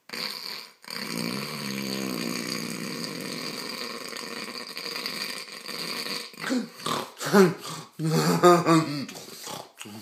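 A sleeping man snoring: one long, rasping snore starting about a second in and lasting about five seconds, then a few shorter, louder snorts and grunts near the end.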